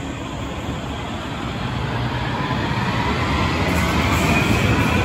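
High-floor light rail train pulling out of an underground station, its wheels rumbling on the rails and growing louder as it gathers speed, with a faint rising whine from the traction motors.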